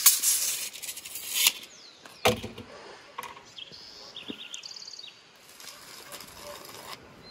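Steel tape measure retracting into its case with a loud hiss, ending in a sharp snap about two seconds in as the hook hits the case. A few short high bird chirps follow.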